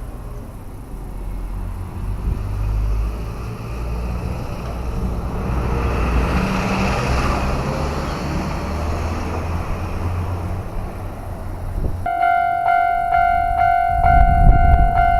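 A passing vehicle's low rumble swells and fades. About twelve seconds in, a level-crossing warning bell starts up and rings in an even, repeating clang, the signal that a train is approaching and the crossing is closing.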